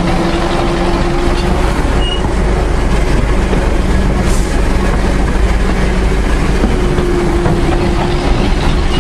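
Narrow-gauge train on the move, heard from the cab of its diesel locomotive: a steady engine hum under continuous wheel and rail noise.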